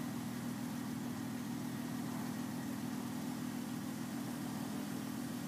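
Off-road SUV engine idling steadily, an even low hum that does not change.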